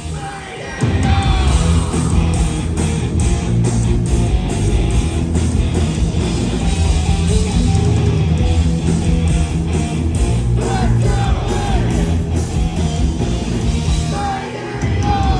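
Heavy metal band playing live: distorted electric guitars, bass and drums with a singer on top, in a reverberant ballroom.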